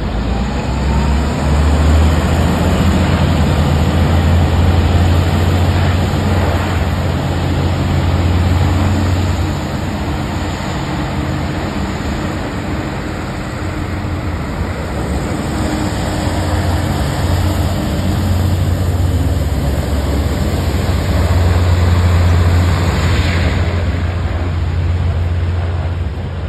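Griffon 12000TD hovercraft running under power: its engines, lift fans and ducted propellers make a loud, steady deep drone with a rush of air. A whine rises briefly in pitch at the start.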